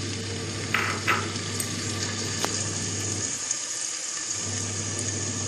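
Potato chunks frying in oil in an aluminium pressure cooker, being lightly browned: a steady sizzle with a couple of small crackles about a second in, over a low hum.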